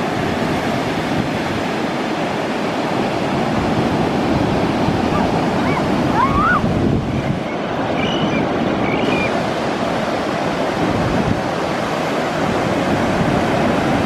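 Pacific Ocean surf breaking and washing up the beach in a steady rush, with some wind on the microphone.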